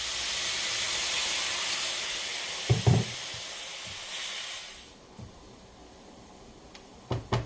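White wine deglazing a hot cast-iron pan of caramelised onions: a loud steaming hiss that fades away about five seconds in. A spatula knocks against the pan about three seconds in and twice near the end.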